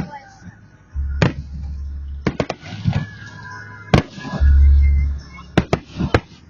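Fireworks display: a series of sharp bangs from bursting shells, about ten in all, some in quick runs of two or three, with stretches of deep low rumble, the strongest about four and a half seconds in.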